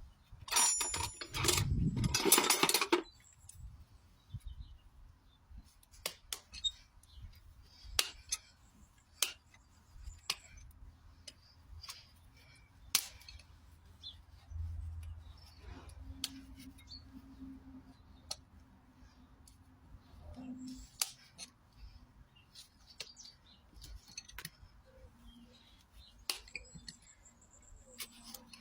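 Hoof trimming with farrier's tools: a loud rough scraping burst about a second in, then scattered sharp clicks and snips of tools on hoof horn.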